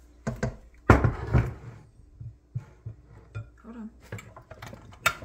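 Rubber spatula knocking and scraping against the stainless steel bowl of a KitchenAid stand mixer as flour mixture is added, with a cluster of louder knocks about a second in and lighter taps after.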